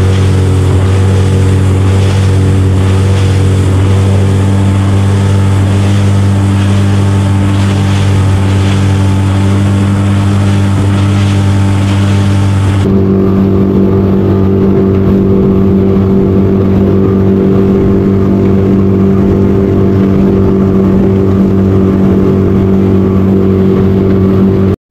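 Small boat's outboard motor running at a steady speed, an even engine drone. About halfway through the drone abruptly changes to a different set of pitches and loses its hiss.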